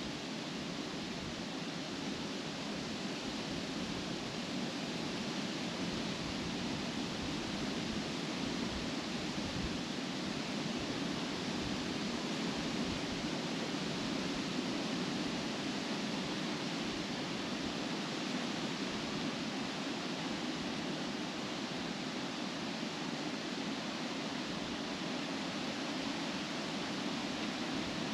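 Steady wind rustling through tree leaves and grass, a constant even rush with no gusts standing out.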